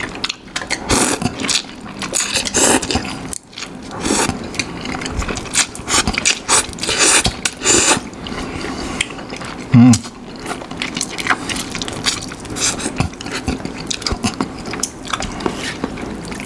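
People slurping prawn noodle soup and chewing, a run of wet slurps and mouth noises, with a short loud low hum about ten seconds in.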